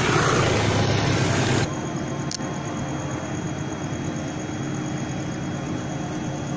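A motorcycle engine running close by, loud and steady, cut off suddenly after about a second and a half; then a quieter steady engine hum with faint high tones and a single click soon after.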